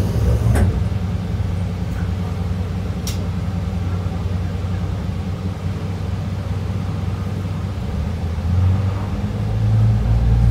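A train's engine running with a steady low rumble, heard from inside the train, growing louder near the end as the train pulls away from the platform. Two sharp clicks come early in the stretch, one about half a second in and one about three seconds in.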